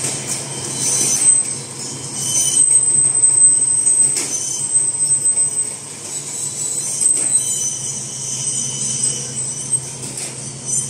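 Automatic napkin folding and packaging machine running: a steady low mechanical hum with high thin tones that come and go, and a sharp click or two.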